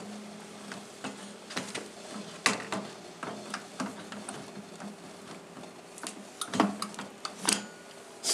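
Metal clicks and knocks of a pasta machine's ravioli attachment being handled and clicked into place, the loudest about two and a half seconds in and twice near the end, over a faint steady hum.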